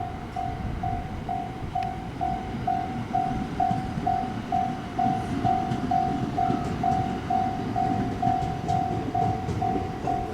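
Japanese level crossing's electronic warning bell ringing steadily, a little over two strikes a second, over the rumble of a passing train.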